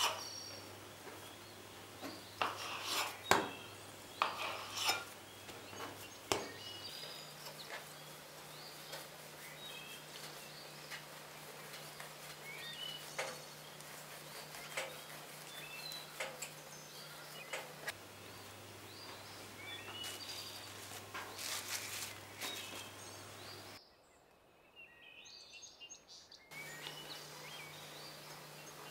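A knife cutting through soft yeast dough and knocking on the board several times in the first few seconds, then quieter handling of the dough pieces. Small bird chirps come and go in the background over a low steady hum.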